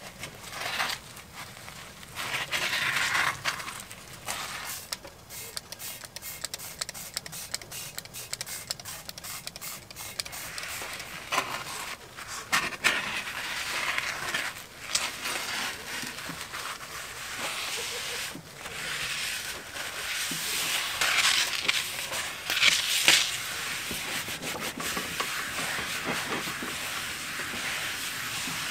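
Wad of paper towel rubbed and scrubbed over a griddle plate to wipe off greasy cooking residue: irregular swishing strokes with small clicks, loudest in bursts a few seconds in and again past the middle.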